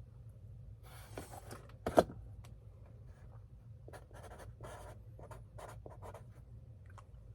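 Pen on paper: short scratchy writing strokes, with a sharp click about two seconds in, over a faint steady low hum.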